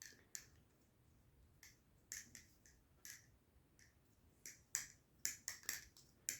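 New Era Abyss balisong (butterfly knife) being flipped: sharp clicks as the handles and blade swing and snap together. The clicks are scattered at first, then come in quicker runs in the second half.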